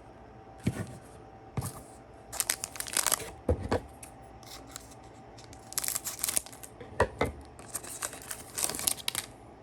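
A foil trading-card pack being torn open and its wrapper crinkled, in several rustling bursts, with a couple of soft knocks.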